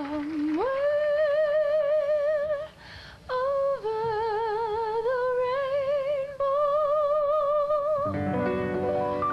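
Stage musical number: a solo singing voice holds long notes with wide vibrato, stepping up in pitch, with a short break in the middle. Near the end the accompaniment enters with a full sustained chord.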